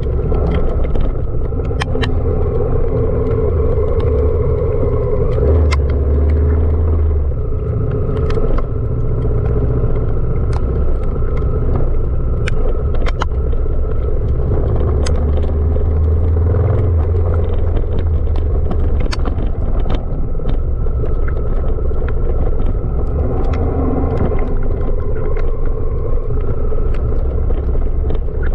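Honda Africa Twin CRF1000 DCT's parallel-twin engine running steadily as the motorcycle rides off-road, with scattered sharp clicks and knocks throughout.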